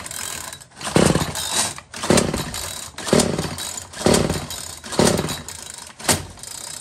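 Small two-stroke engine of a Bolens string trimmer being pull-started over and over, about one pull a second, each pull giving a short burst of engine sound.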